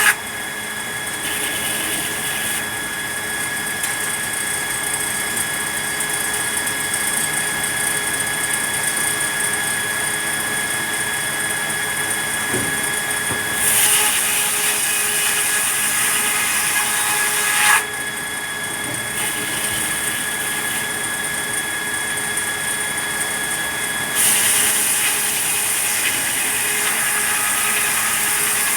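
Sawmill saw running steadily with a high whine, cutting red pine. Two spells of louder, hissier cutting noise last about four seconds each, one around the middle and one near the end.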